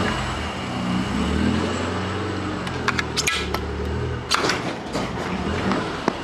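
1994 Plymouth Colt's engine idling, with a few sharp clicks about three seconds in and a knock a second later.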